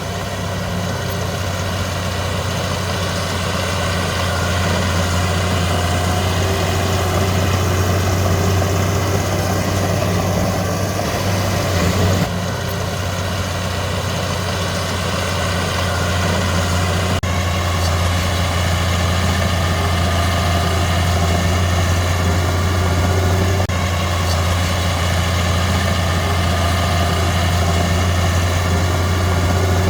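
Heavy diesel earthmoving machinery engine running steadily with a deep drone, its tone shifting abruptly a few times.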